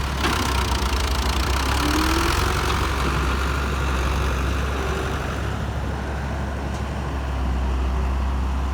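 Excavator diesel engine running steadily with a deep, even drone.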